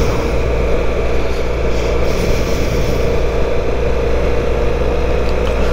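Motorcycle engine running steadily at low speed, heard from the rider's seat as a constant low rumble with a faint steady whine above it.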